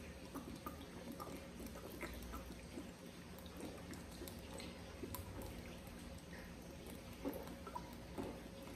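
A man chugging beer from a glass bottle: faint gulps and swallows with small wet clicks, two of them a little louder near the end.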